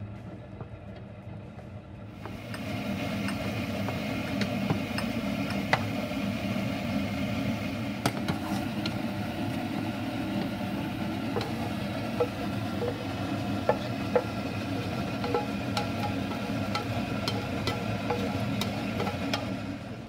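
Chopped garlic frying in hot oil in a nonstick frying pan, sizzling steadily, with a wooden spatula stirring, scraping and tapping against the pan. The sizzle grows louder about two seconds in.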